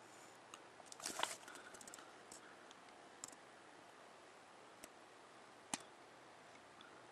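Faint rustle of an instruction booklet's paper pages being handled and turned, strongest about a second in, followed by a few small sharp ticks.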